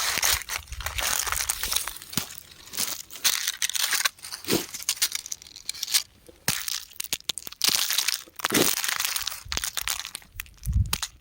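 Rock crumbling and crunching: irregular gritty crackles with short pauses, and sharper cracks about four and a half seconds in and again at about eight and a half.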